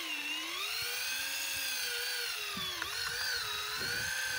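Electric deep-drop fishing reel motor whining steadily as it winds line up from depth, its pitch sagging briefly twice as the load changes, with a couple of faint clicks about three seconds in.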